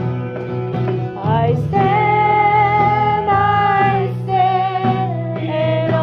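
A woman singing into a microphone over instrumental accompaniment. About a second in, her voice slides up into a long held note with vibrato.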